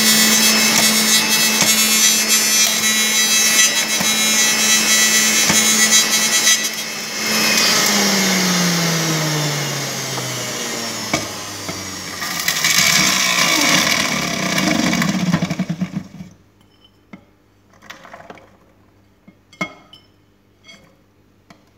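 Electric centrifugal juicer running loud while pomegranate seeds are pressed through it. After about seven seconds the motor is switched off and winds down in a falling tone, runs again for a few seconds, then stops. Near the end a few light clicks as more seeds drop into the feed tube.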